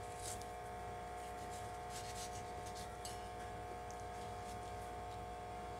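A kitchen knife slicing through a peeled mango held in the hand: a few faint, soft cuts and scrapes over a steady background hum.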